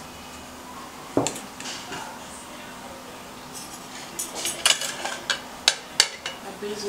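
Dishes and cutlery clinking on a dining table: a single clink about a second in, then a quick run of sharp clinks and taps of forks and spoons against plates in the last few seconds.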